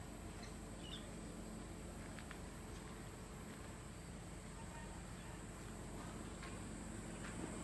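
Insects chirring steadily in the surrounding garden, a faint continuous high-pitched drone, with one short chirp about a second in.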